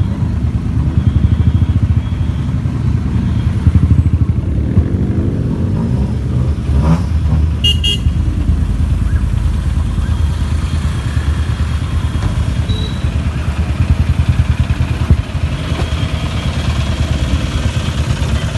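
Modified cars' loud aftermarket exhausts running, a rapid low rumble that rises and falls as engines are revved now and then. A short high beep sounds about eight seconds in.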